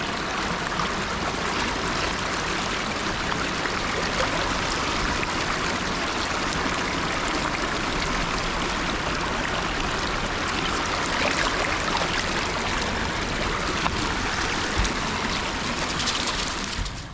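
A river stream running steadily, an even rush of flowing water.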